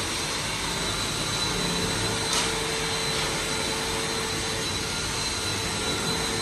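Rotary polishing machine running steadily as the car's body is rubbed with compound, a constant whine over a rushing hiss.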